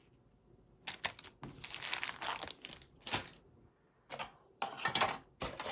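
Plastic parts bags from a model kit crinkling as they are handled, in irregular bursts of rustling after a quiet first second.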